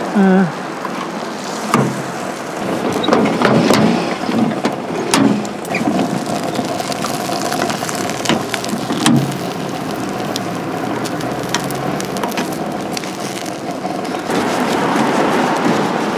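Busy street ambience, mostly passing traffic, with scattered sharp clicks and knocks. A steady hum runs through the middle stretch, and the street noise grows louder near the end.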